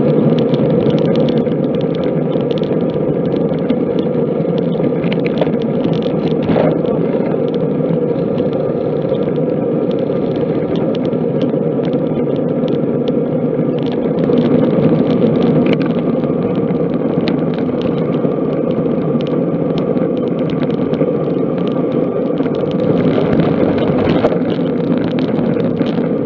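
Steady rush of wind and road noise on a bike-mounted camera's microphone while riding a road bike at speed. A car passes about halfway through, with a slight swell in the noise.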